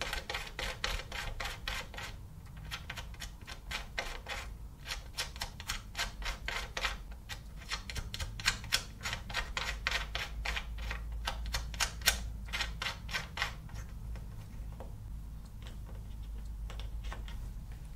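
A hex-head screw being fastened by hand, making rapid even clicking of about five clicks a second in runs with short breaks. The clicking stops about thirteen seconds in, leaving only a low hum.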